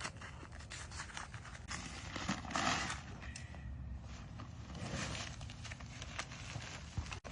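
Scraping and rustling of paper concrete-mix bags being handled and set down, with scattered knocks and a louder scrape about two and a half seconds in.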